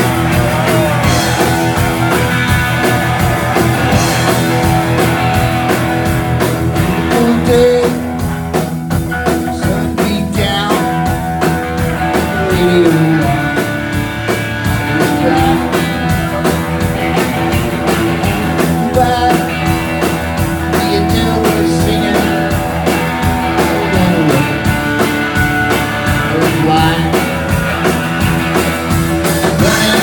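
Live rock band playing loudly: electric guitar over a steady drum beat.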